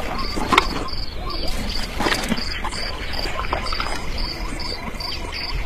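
Insects chirping in a steady, even rhythm, about three chirps a second, as a natural outdoor ambience, with a few short clicks or knocks standing out over it, the loudest about half a second in.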